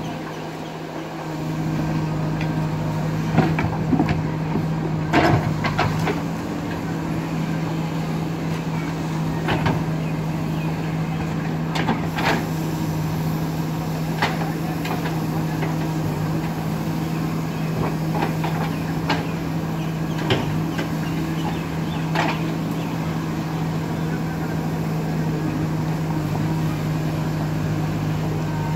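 JCB backhoe loader's diesel engine running steadily under digging work, with scattered sharp clanks and knocks, mostly in the first two-thirds.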